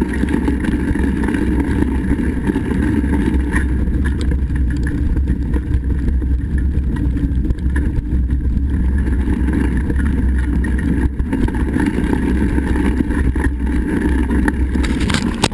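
Wind buffeting the microphone of a camera on a mountain bike riding fast along a dirt trail, a steady loud rumble mixed with tyre noise, with occasional knocks and rattles from the bike.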